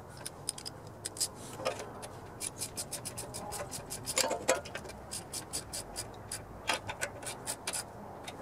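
Ratchet wrench clicking in short quick runs, several clicks a second, as parts are tightened back onto a pressure washer's small engine.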